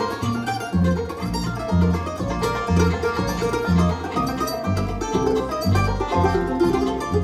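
Instrumental string-band music in a bluegrass style: quick picked notes over a steady, alternating bass line of about two notes a second.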